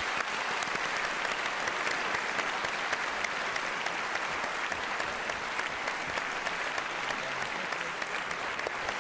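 A large audience applauding steadily, a dense patter of many hands clapping.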